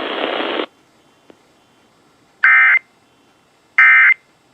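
A steady hiss cuts off abruptly under a second in. Then come two short bursts of Emergency Alert System SAME data tones, a warbling digital squawk, about 1.3 s apart: the end-of-message code closing the test.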